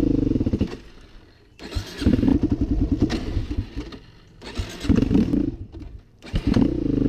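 Four-wheeler (ATV) engine revving in four surges as the throttle is opened and eased off, with quieter dips between.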